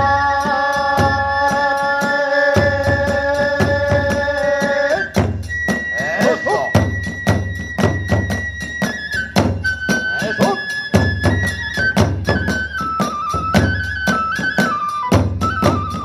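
Kagura hayashi ensemble: a large drum and small hand cymbals beat a quick, steady rhythm under a bamboo flute melody. A long held note fills the first five seconds, then a thinner, high flute line steps down in pitch.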